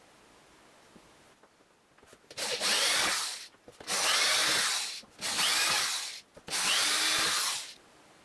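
Power tool run in four bursts of about a second each, with short pauses between them.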